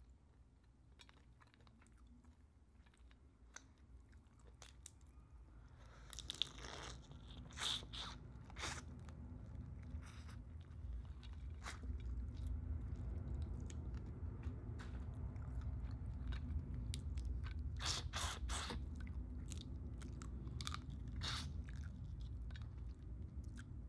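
Close-up eating of boiled lobster: shell pieces cracking and crunching between fingers and teeth, with chewing and sucking meat from the legs. Sharp cracks come in two clusters, about a quarter of the way in and again past two-thirds through, and the chewing grows louder after the first few quiet seconds.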